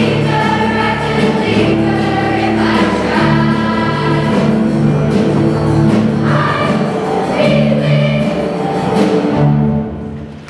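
Middle-school show choir of girls' and boys' voices singing in harmony in held chords; the song ends with a last chord dying away near the end.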